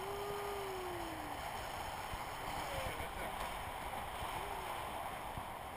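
Steady rush of airflow over a handheld action camera's microphone during a tandem paraglider flight. A faint falling tone sounds in the first second or so, and a weaker one about four and a half seconds in.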